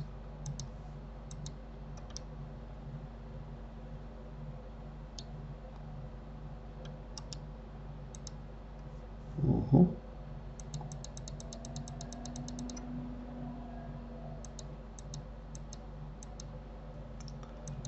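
Clicks of a computer mouse and keyboard. There are scattered single and double clicks, and a quick run of about twenty clicks in a row just past the middle. A brief low sound about halfway through, and a steady low hum underneath.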